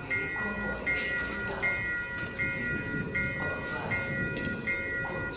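Electronic railway warning signal sounding a repeated high beep over a steady tone, about four beeps every three seconds, typical of the alarm that warns of an approaching train.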